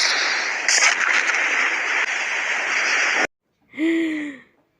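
A steady hissing, rushing sound effect that cuts off suddenly about three seconds in, followed by a short voiced sound that falls in pitch.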